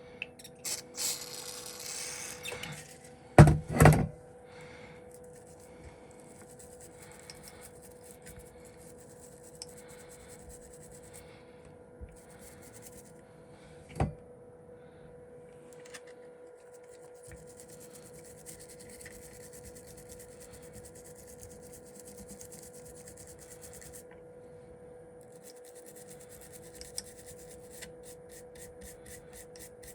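A short hiss of aerosol brake cleaner sprayed onto a circuit board, then two loud knocks. After that come long stretches of faint scrubbing as a brush works the board clean, with a single knock partway through.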